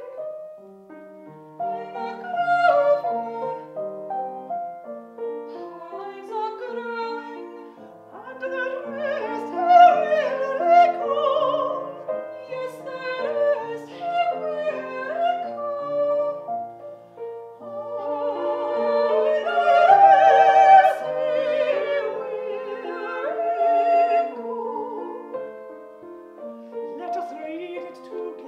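Classical female voices singing an art song with wide vibrato, accompanied by a grand piano.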